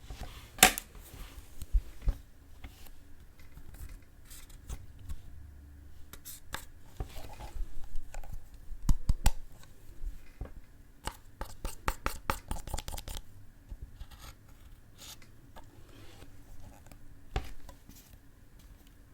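Close-up ASMR handling of slime: an irregular run of sharp crackles, clicks and scrapes, thickest in the middle, with a few louder cracks.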